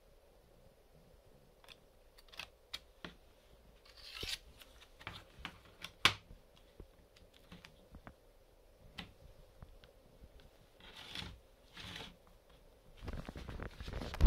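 Handling noise from a car head-unit touchscreen display assembly: scattered clicks and taps, with short rustles and scrapes as the glass panel, metal frame and flex cable are moved about on a wooden table. There is a sharp click about six seconds in and a louder knock at the very end.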